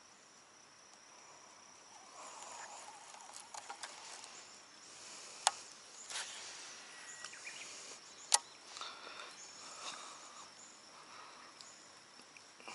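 Steady high insect chirring in the background, with rustling and shuffling of someone moving along the bank and handling gear. Two sharp clicks come about five and a half and eight seconds in.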